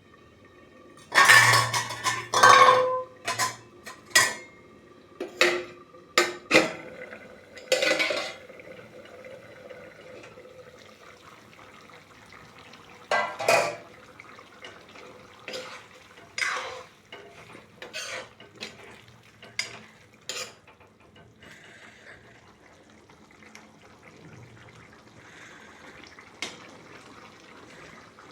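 A metal spoon clattering and scraping against a cooking pot, thick with strokes over the first eight seconds, then a few scattered clinks and scrapes, with one last clink near the end.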